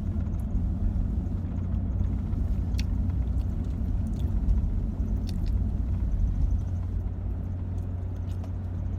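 Steady low vehicle rumble with a few faint ticks, easing slightly near the end.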